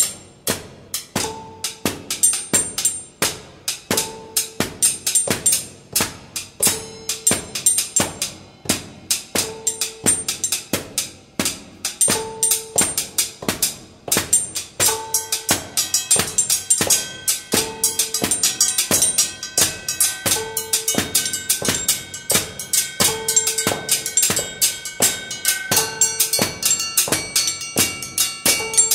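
Rhythmic percussion music: sharp, evenly spaced strikes like a machine's cycle, with a short mid-pitched tone coming back every two and a half seconds or so. From about halfway on, held high tones join in and thicken.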